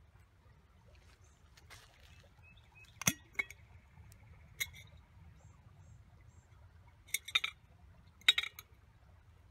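Several sharp clinks, spread out with a cluster of them near the end, over a low steady rumble.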